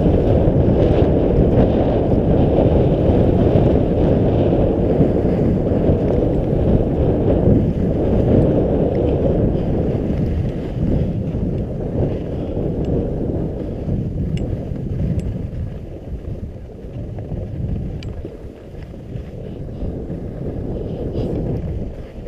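Wind buffeting a GoPro's microphone as it moves down a groomed ski run, with skis scraping over the snow: a dense, low rumbling rush that is loudest in the first half and eases off in the second half as the skier slows.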